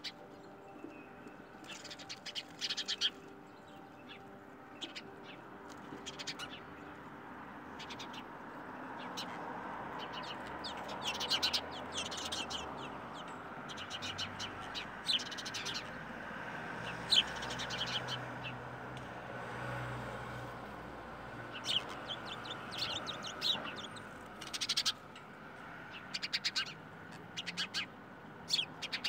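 Birds chirping in short runs of quick high calls, over a soft steady hiss that swells through the middle. A few held low tones fade out in the first several seconds.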